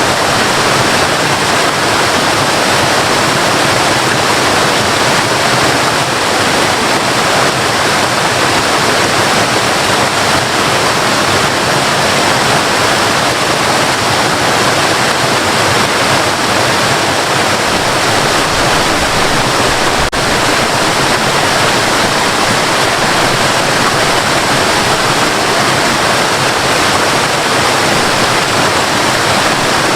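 Waterfall: a steady, loud rush of falling water, unchanging throughout.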